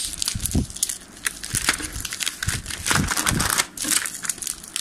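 Bubble-wrap plastic crinkling and crackling irregularly as hands peel and pull it off a motorcycle exhaust.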